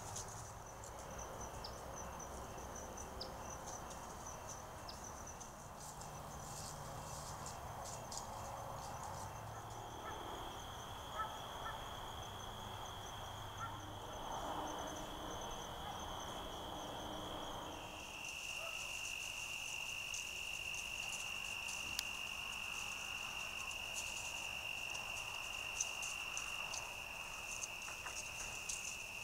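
Steady insect chorus of crickets, a continuous high trill that shifts to a slightly lower pitch about eighteen seconds in, with faint scattered clicks over it.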